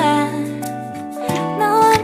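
Background pop song: a singing voice over sustained accompaniment chords.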